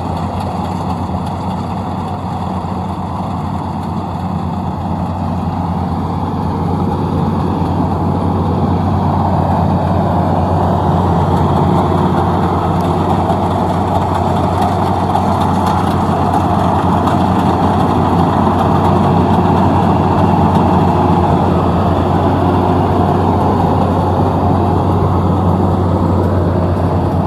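Combine harvester running steadily, its engine and machinery making a continuous low drone that grows a little louder over the first ten seconds or so.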